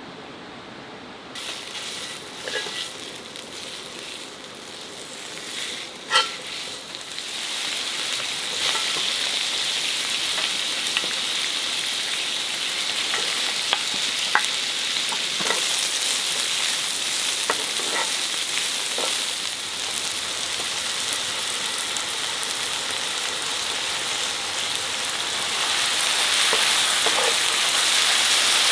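Food sizzling in a hot pan while being stirred, with small clicks of a utensil. A sharp knock comes about six seconds in, after which the sizzle becomes steady and louder, and it grows louder again near the end.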